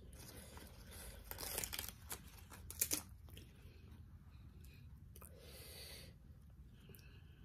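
Crisp green-leaf lettuce leaves torn and rustled by hand: bursts of crinkly tearing about a second in, a few sharp snaps near three seconds, and a softer rustle later on.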